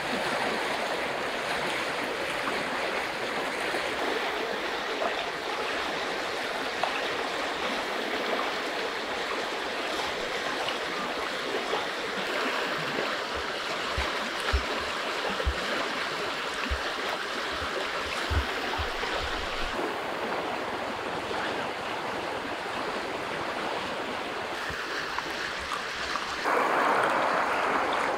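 Steady rush of a wide river flowing over rocks. A few dull low knocks come partway through, and near the end water is poured into a glass, splashing over the river's sound.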